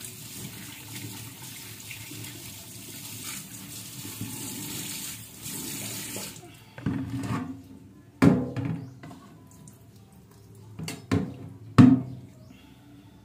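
Kitchen tap running into a sink, which stops about six seconds in. Then a few sharp knocks and clunks of a large aluminium pot with raw pork in it being handled at the sink, the loudest about eight and twelve seconds in.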